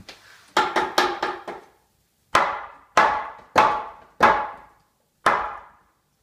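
Hammer blows driving a wooden temporary support post into place: a quick run of about five strikes, then five more spaced about half a second apart, each ringing briefly.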